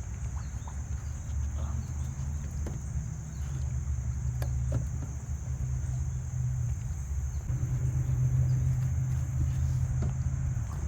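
Boat motor running steadily at low speed, a low hum that grows louder about two-thirds of the way through, with a few light knocks.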